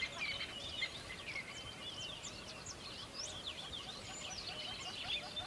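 Many birds chirping at once: a dense, continuous chorus of short, high calls.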